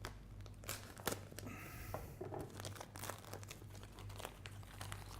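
A food packet being opened and handled: a run of crinkling and crackling with scattered small clicks.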